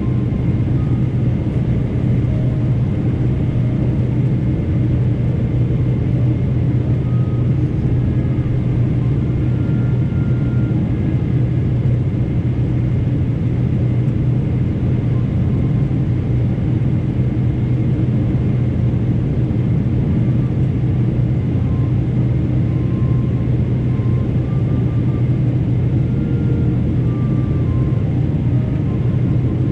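Steady cabin noise of a Boeing 777 in flight: the even hum of its GE90 turbofans and the rush of air over the fuselage, heard from a window seat, with a strong low drone.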